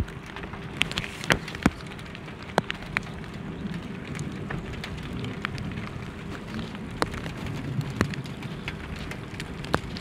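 Scattered raindrops tapping at irregular intervals, several sharp ticks a second, over a low steady background noise.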